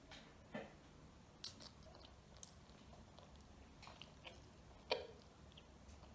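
Faint eating sounds of a child eating ramen noodles: quiet chewing and slurping, with a few soft mouth clicks and one sharper click about five seconds in.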